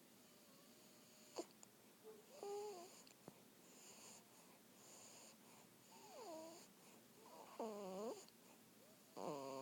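Quiet wheezy snoring breaths, about one a second, from someone asleep. Several whiny squeaks that dip and rise in pitch come with the breaths, the last two near the end the loudest.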